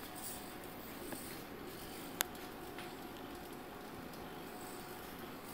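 Quiet room with a faint steady hum and hiss, broken by one sharp click about two seconds in.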